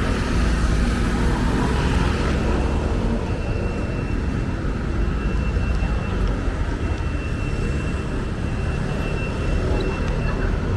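Steady low rumble of city traffic, with a faint, thin, steady high whine starting about three seconds in.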